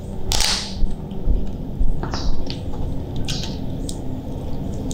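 Hands cracking and pulling apart the shell of a boiled giant mantis shrimp: several crackling cracks and tears, the loudest about half a second in.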